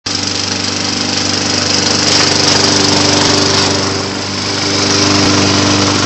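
Toro push mower's small gasoline engine running steadily at a constant speed, with a strong hiss over it and a slight dip in level about four seconds in.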